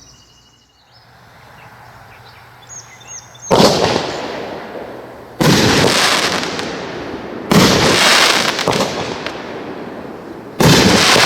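Consumer multi-shot aerial firework cake: a faint hiss, then four loud bangs about two seconds apart, each dying away over about two seconds.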